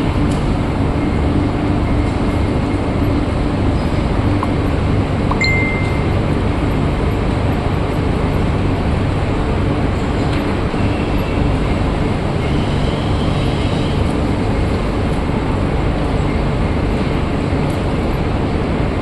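Steady loud roar of a metal-producing furnace and its plant machinery, deep and unbroken, with a low hum through it. A few faint metallic clinks come about five seconds in.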